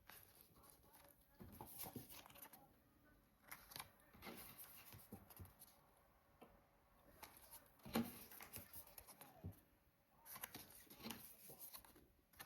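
Faint handling sounds of stiff printed cards and box-set packaging: light rustles and soft clicks on and off, the clearest about eight seconds in.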